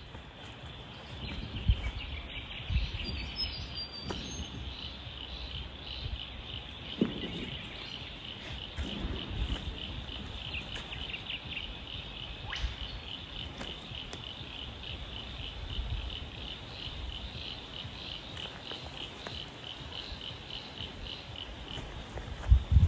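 A cricket-like insect chirping in a steady, rapid pulse. There are low thumps and rustles of tent pitching, a brief bird chirp a few seconds in, and a louder knock near the end.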